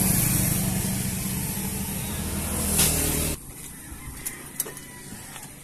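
A vehicle engine running steadily with a strong hiss over a low hum, cut off suddenly about three and a half seconds in. Then two faint clicks from the pickup's door handle.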